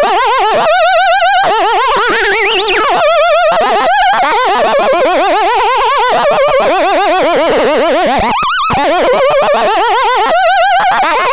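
ANTISILVESTRON electronic sound device producing loud, warbling tones whose pitch wobbles rapidly up and down, with a brief upward sweep early on and a short dip and restart about eight seconds in.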